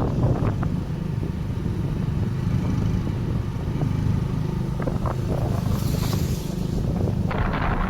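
Motorcycle running steadily at road speed while being ridden, a low engine rumble with wind noise on the microphone that swells near the end.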